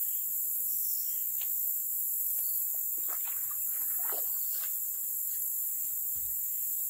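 A steady, high-pitched chorus of insects such as crickets.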